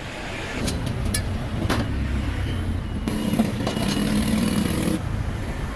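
Road traffic: a steady low rumble, with a vehicle engine passing for about two seconds, starting about three seconds in. A few light knocks in the first two seconds.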